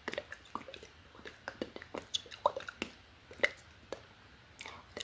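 Close-miked ASMR mouth sounds: irregular wet clicks and smacks of lips and tongue, several a second, mixed with soft unintelligible whispering.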